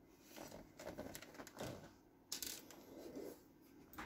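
Handling noise of a car stereo head unit being picked up and moved: scattered light clicks and rustling, with a louder rustle about two and a half seconds in.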